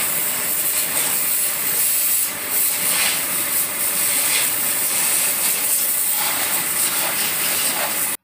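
High-pressure water jet hissing steadily as it sprays a motorcycle being washed.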